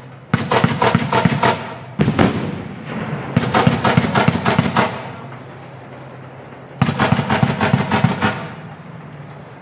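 Machine-gun fire in four rapid bursts, each a dense rattle of shots lasting about a second and fading out, over a steady low hum.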